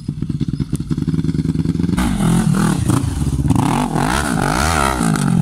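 Sport ATV engine running and revving hard, the pitch sweeping up and down several times; a louder, harder-revving engine takes over about two seconds in.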